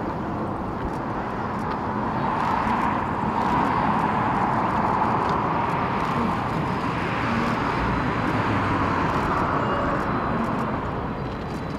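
Airbus A380-841 airliner's four Rolls-Royce Trent 900 turbofans running at taxi power, a steady jet rush and whine that swells and eases twice as the aircraft rolls past.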